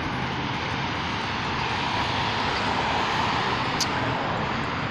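Road noise of a vehicle passing on the street, swelling to a peak about three seconds in and then easing off.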